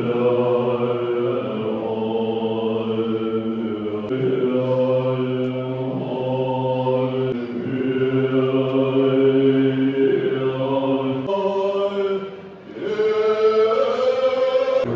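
Tibetan Buddhist monks chanting together in low, steady voices, holding long notes that shift every couple of seconds. There is a brief pause for breath about twelve seconds in.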